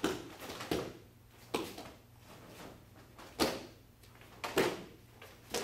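Karate uniform snapping and bare feet slapping on the mats as kata techniques are thrown. About half a dozen sharp snaps, unevenly spaced, with two in quick succession near the end.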